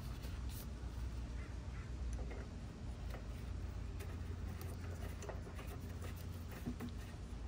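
Faint handling sounds of a generator's oil dipstick being wiped with a cloth and pushed back into its fill tube, with small clicks and scrapes of the plastic cap, over a low steady rumble.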